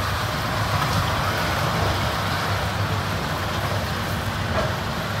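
Diesel engine of a semi log truck under heavy load as it drags a weight-transfer pulling sled, a steady low drone.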